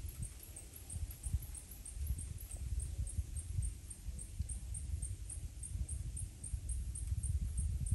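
Uneven low rumble on the microphone, jolting and gusting, with a faint high tick repeating evenly about three times a second.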